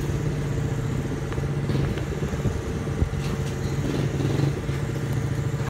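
Small motorcycle engine running steadily close by as the rider moves off.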